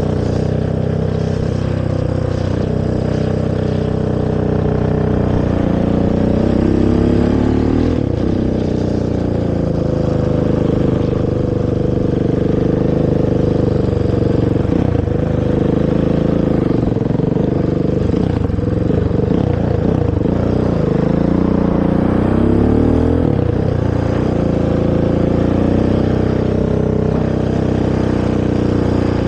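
Honda TRX450 quad's single-cylinder four-stroke engine through its stock exhaust, running under way with the revs rising and falling several times as the throttle is worked.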